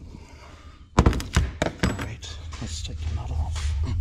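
Two heavy metallic knocks about a second in, then lighter knocks and clatter of a hammer, punch and hydraulic cylinder being handled on a steel workbench. A low steady hum comes up in the second half.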